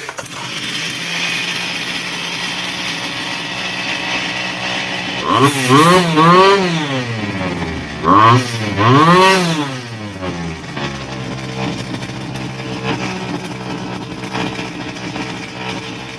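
Stihl FS400 brush cutter's two-stroke engine running on a test run after being reassembled. It idles steadily and is revved twice, about five and eight seconds in. Each time the pitch rises and falls back to idle.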